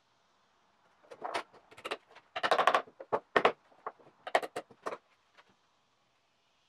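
Small hammer tapping the wooden handle and brass ferrule of a Japanese nata, driving them home onto the tang during final assembly: a quick run of sharp taps, densest about two and a half seconds in, stopping about five seconds in.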